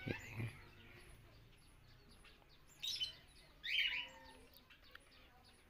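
Ringneck parakeets calling while they feed: two short chirping calls about three and four seconds in, over faint high twittering.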